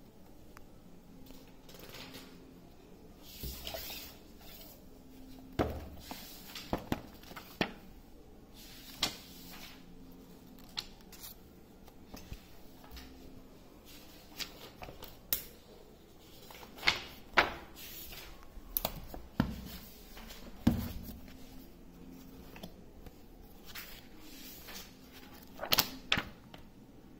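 Paperback books being handled: scattered knocks and thumps as books are picked up from a stack and set down, with pages rustling as they are leafed through.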